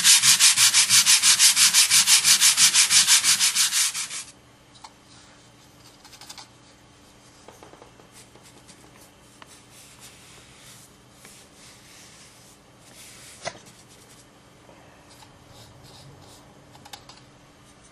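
Hand sanding of a dried Durabond 20 joint-compound patch around a wall outlet: fast, even back-and-forth rubbing strokes, about four or five a second, which stop abruptly about four seconds in. After that, only faint scuffs and small taps.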